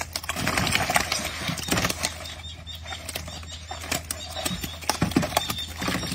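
Irregular knocks and rustling as a wet fishing net with tilapia in it is pulled in over the side of a wooden boat and handled, with some splashing water.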